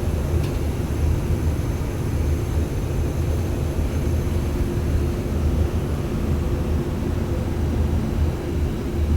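Steady, unbroken low machinery drone with a faint held hum above it.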